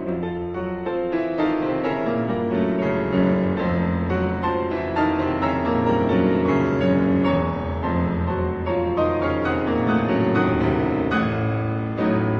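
Background music led by piano, notes struck one after another over held low notes.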